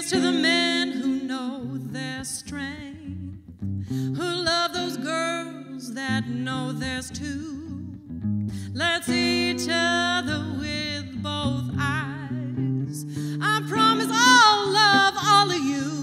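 A woman singing in long phrases with a wide vibrato over a strummed acoustic guitar, with short breaks between phrases.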